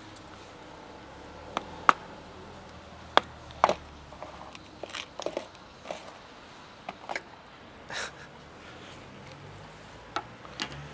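Sharp plastic clicks and knocks, about a dozen spread unevenly, from a clip-lock plastic food container being set down on a wooden bench, its latched lid unclipped and pulled off, with dry cat kibble rattling inside.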